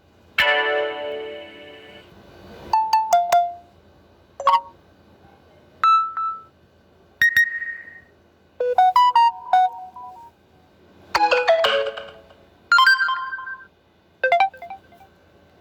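A run of Samsung Galaxy notification tones played one after another: about nine short electronic chimes and jingles, each lasting about a second or less, with short pauses between.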